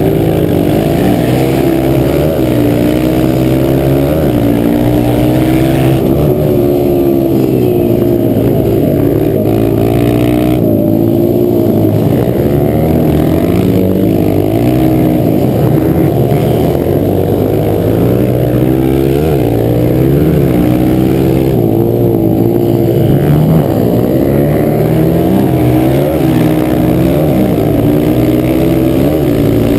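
Dirt-track racing motorcycle engine heard up close from the rider's helmet, running hard, its pitch rising and falling over and over as the throttle is worked through the turns.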